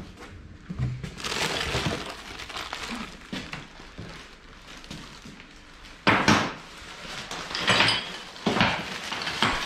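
Loose metal machine parts of a belt grinder clinking and clattering as they are handled and unpacked: a longer noisy stretch about a second in, then several sharp knocks in the second half.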